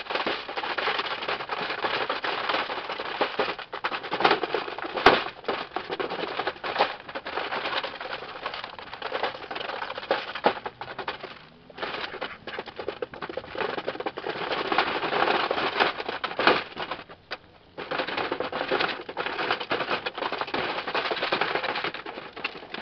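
Domestic ducks feeding from a trough of dry pellets: a dense, rapid clatter of bills scooping and snapping at the feed, with brief lulls about twelve and seventeen seconds in.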